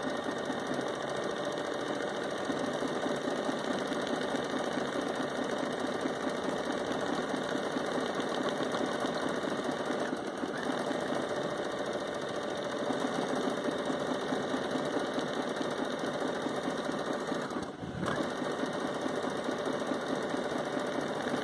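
Baby Lock Jubilant sewing machine stitching an automatic one-step buttonhole, running steadily at a fast, even stitch rate. It breaks briefly about ten seconds in and again near the end, then stops at the very end.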